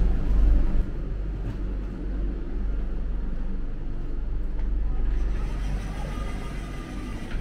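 Steady low rumble and hum inside a Vande Bharat Express train coach, louder for about the first second and then even.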